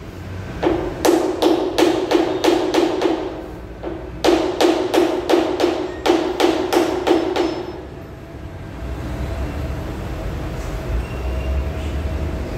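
Hammer blows on the steel drum of a concrete mixer truck, about three to four a second with a metallic ring, in two runs of a few seconds each. After about eight seconds the hammering stops and a low, steady machine rumble is left.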